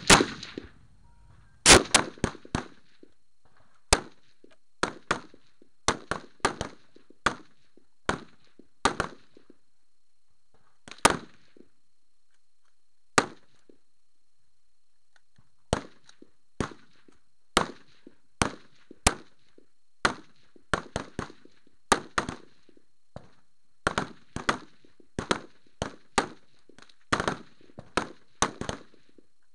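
Rifle fire from several rifles along a firing line: many sharp cracks at irregular intervals, often two or three close together. The two loudest shots come near the start.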